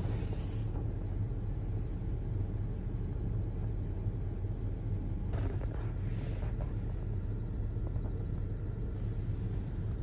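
Car engine running, a steady low rumble heard from inside the cabin.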